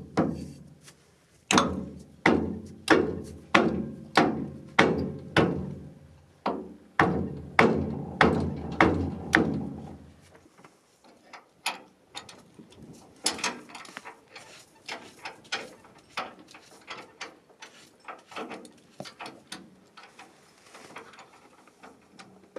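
Wooden mallet knocking on the steel trailer hitch, about two loud blows a second, each ringing briefly through the frame. After about ten seconds the blows stop and a wrench on the hitch bolt takes over with lighter, irregular metallic clicks.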